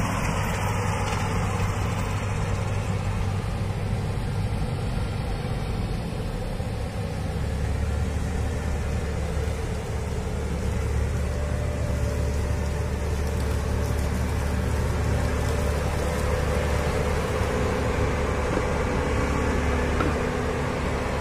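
Claas Lexion combine harvester running steadily while harvesting maize, its engine and threshing machinery making a continuous hum. The low engine note deepens and strengthens about seven seconds in as the machine draws near.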